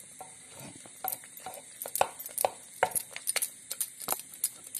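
Wooden churning stick knocking and scraping against the inside of an aluminium pressure cooker while mashing cooked rice: an irregular run of clicks and knocks, faint at first and then several a second from about a second in.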